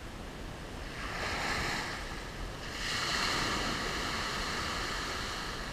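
Small shore-break waves breaking and washing up a sandy beach: one surge about a second in, then a louder, longer one about three seconds in.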